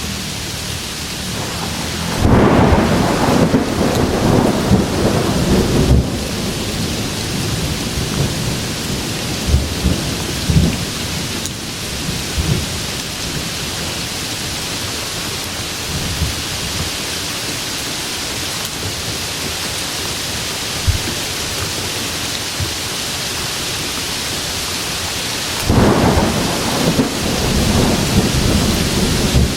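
Steady rain with two spells of thunder: a crackling peal about two seconds in that lasts some four seconds, then fainter low rumbles, and a second peal starting near the end.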